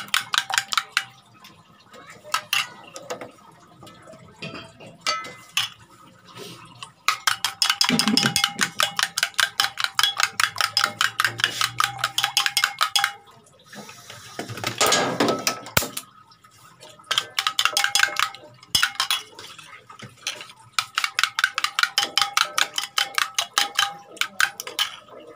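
A metal spoon beating raw egg in a steel bowl: rapid, even clinking in bursts of several seconds with short pauses, the bowl ringing faintly under the strokes. A short, louder noisy rush comes about halfway through.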